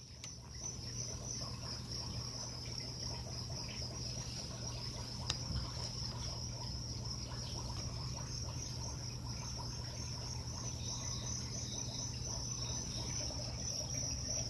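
Crickets chirping continuously in a high, steady trill, over a low steady hum.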